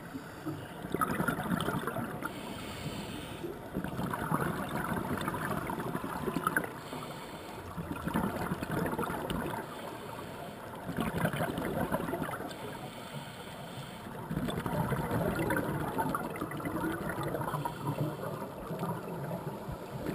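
Scuba diver breathing through a regulator, heard underwater: exhaled bubbles gurgle in surges of a few seconds, with a short hiss of inhaling between them, about three seconds in, again near seven seconds and near thirteen seconds.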